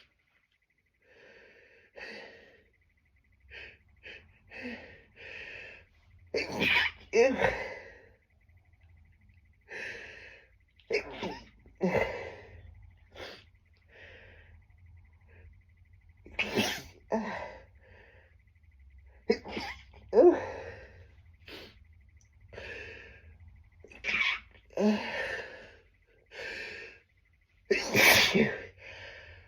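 A person sneezing over and over: a run of strong sneezes, some held back and stifled, with sniffs and catching breaths between them. The uploader puts the sneezing down to tree pollen.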